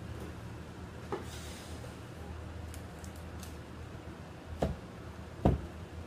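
Books being handled and pulled from a bookshelf: a brief rustle, a few light ticks, then two knocks near the end, the second louder, over a steady low hum.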